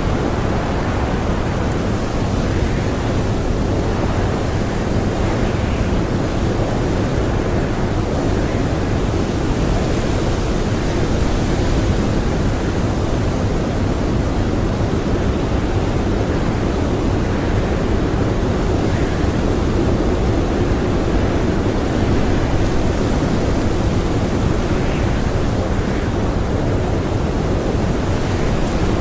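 Strong blizzard wind blowing steadily, a dense rushing noise that swells slightly now and then.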